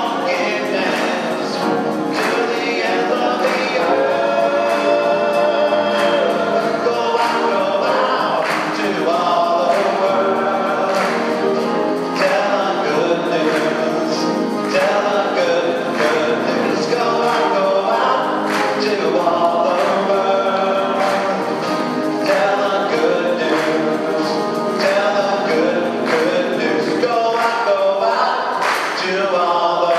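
Mixed choir singing a contemporary hymn with acoustic guitar accompaniment, continuous and full.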